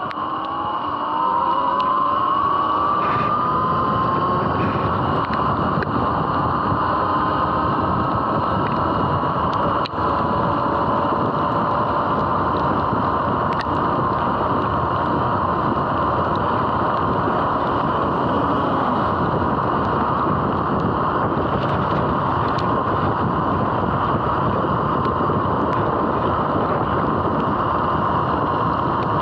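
Electric dirt bike's motor whine rising in pitch as it accelerates over the first couple of seconds, then holding a steady high whine at cruising speed, under heavy wind and wet-tyre noise.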